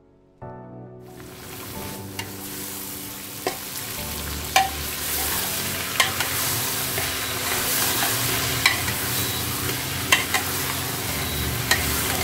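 Sliced onions sizzling in hot oil in an aluminium pressure cooker while a steel spoon stirs them, clinking against the pot every second or two. A few notes of piano music are heard at the very start before the frying takes over.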